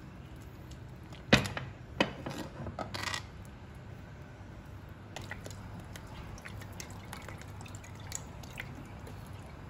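A metal spoon stirring soy sauce into stock in a stainless steel wok: a sharp clink of the spoon against the pan a little over a second in and another at two seconds, then a flurry of small knocks and liquid sloshing. Later, soy sauce poured from a bottle into the stock, with faint drips and ticks over a steady low hum.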